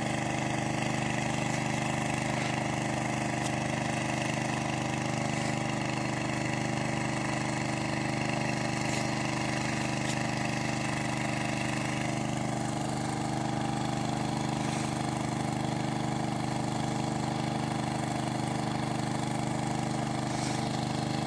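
An engine running steadily at a constant speed, an even hum that does not change.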